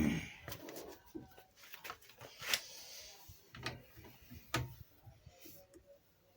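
A faint thump, then a few sharp clicks and knocks about a second apart, like tools or parts being handled.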